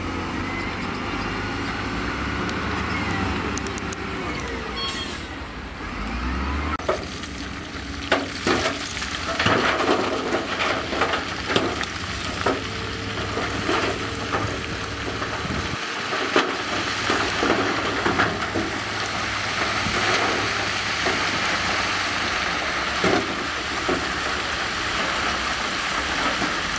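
Diesel engine of heavy earthmoving equipment running under load, its pitch shifting early on. From about seven seconds in, it is joined by many irregular knocks and clatter, as of rock and gravel being moved.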